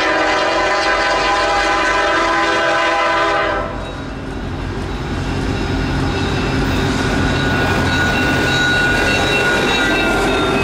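Diesel freight locomotive's air horn sounding a long blast for the first three and a half seconds, then the train's engines and wheels rumbling louder as the lead locomotives approach and pass close by.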